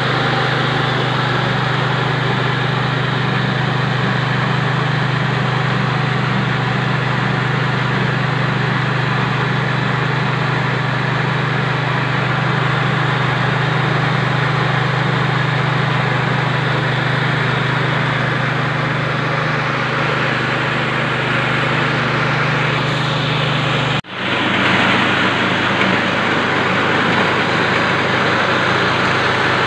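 KD 820 Pro mini rice milling machine running steadily while milling paddy: a loud, even mechanical hum with a hiss over it. It breaks off for an instant near the end and carries on.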